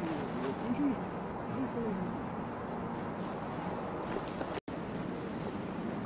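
Steady woodland background with faint insect chirping, and a low murmur of voices now and then.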